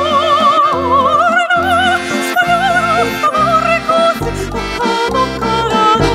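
A woman singing long held notes with a wide vibrato, accompanied by a live ensemble of accordion, plucked strings, bass and drums.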